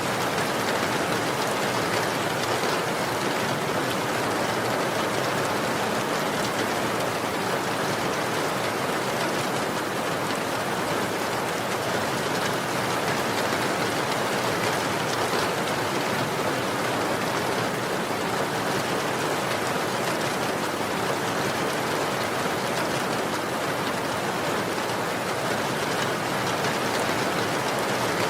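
Steady rain falling, an even wash of sound with faint scattered drop ticks and no change in intensity.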